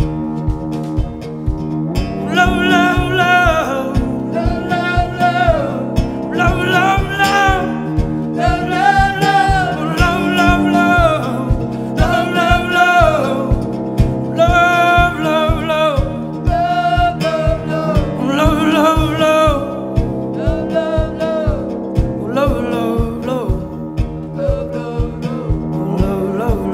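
Live band music: acoustic guitar strumming, cello and a drum kit with a steady beat. A sung vocal melody comes in about two seconds in, in long held phrases.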